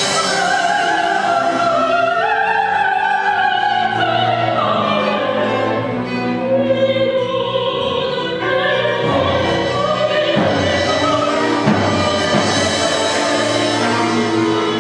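Soprano singing a romance in a classical style, holding long wavering notes, with a small string ensemble playing beneath her.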